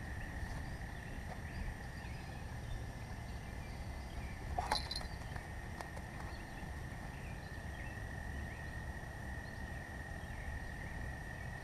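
Quiet outdoor ambience: a steady high-pitched insect trill over a low rumble, with one brief sharp sound about five seconds in.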